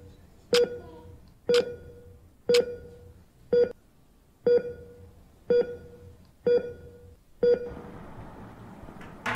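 A wall clock ticking about once a second, each tick a sharp click with a short ringing note. The ticking stops about eight seconds in, leaving a faint hiss, and a knock comes at the very end.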